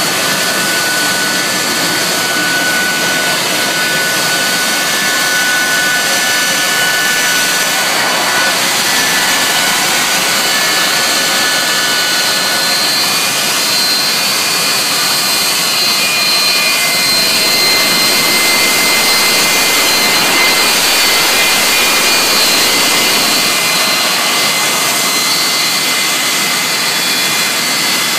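Jet track dryers running in a line as they circle the track drying it after rain: a loud, steady jet roar with high, thin turbine whines over it.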